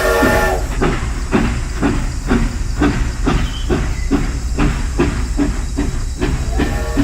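Steam train chuffing steadily about twice a second, with a whistle blast at the start and another near the end.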